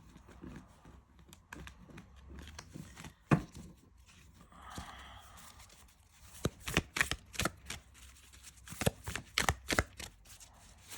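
Kawaii Tarot deck being shuffled by hand: scattered taps and clicks of the cards, one sharper knock about three seconds in, thickening into a quick run of clicks in the second half.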